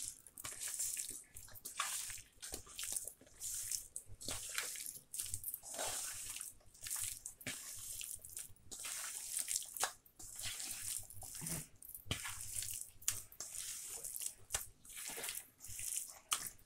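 A bare hand squishing and kneading marinated chicken pieces into cornflour and rice flour in a stainless steel bowl: irregular wet squelching strokes, with short clicks against the steel. This is the flour coating being worked in before frying chicken 65.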